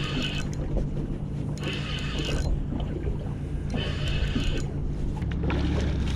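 Spinning reel cranked in three spells, a high whirr about every two seconds, as a hooked striped bass is reeled in. Under it runs a steady low hum, with wind on the microphone.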